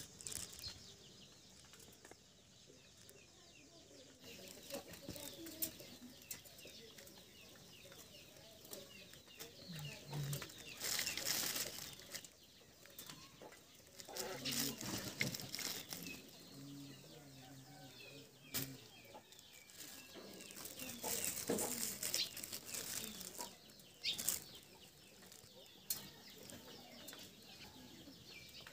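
A Japanese quail chick hatching: faint high peeping, with several bursts of rustling and a few sharp clicks of eggshell.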